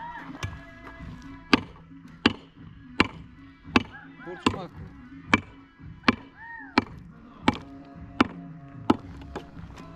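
Repeated chopping blows at a steady pace, about one every 0.7 seconds, with a few short rising-and-falling chirps between them.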